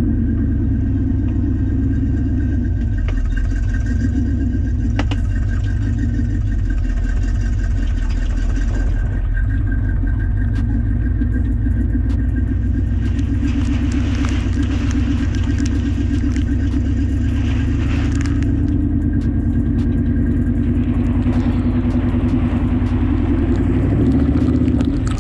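Jeep CJ-7 engine running under steady load while driving a dirt trail, a continuous drone that swells briefly near the end.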